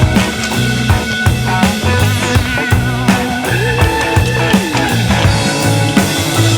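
Background rock music with drums, bass and guitar, playing at a steady beat.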